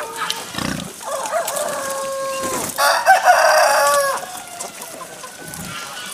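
Rooster crowing: a long held crow, then a louder crow in the middle, amid hens clucking at the feed trough.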